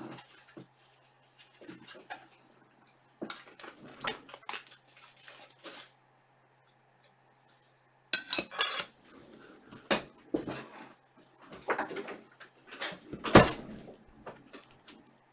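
Irregular clicks, taps and rustling from objects being handled on a desk, coming in bursts, with one sharper knock near the end.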